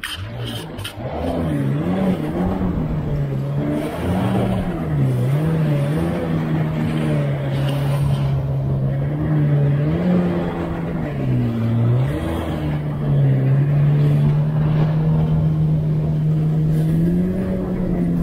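2019 Yamaha GP1800R WaveRunner's engine running under way. Its pitch dips and rises a few times with the throttle, then holds steadier near the end, over the rush of water and wind.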